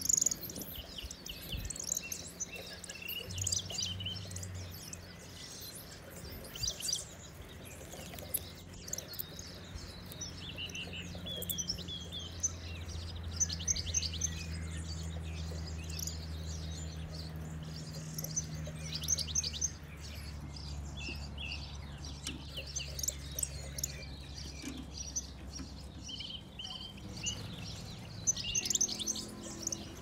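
European goldfinches twittering and calling in quick, high chirps and trills, on and off throughout. A low steady hum runs underneath, strongest through the middle.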